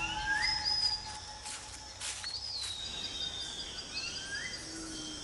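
Rainforest ambience with birds whistling: a short call rising in pitch near the start, a longer whistle falling in pitch around the middle, and another short rising call about four seconds in, over faint background noise.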